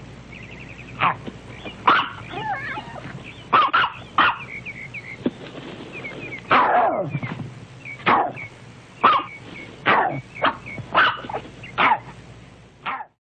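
Small shaggy mixed-breed dog barking repeatedly, about a dozen sharp barks at uneven intervals, each dropping in pitch.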